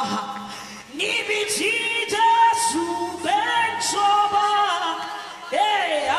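Gospel worship singing with music: sung notes held and sliding between pitches, with a brief drop in loudness about a second in and again near the end.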